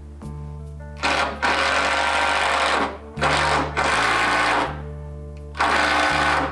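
A handheld power tool running in four loud bursts of one to two seconds, over steady background music.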